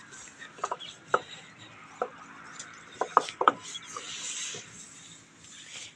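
The inside of a truck's steel wheel rim being scrubbed by hand: a rasping rub with several sharp knocks against the metal in the first few seconds.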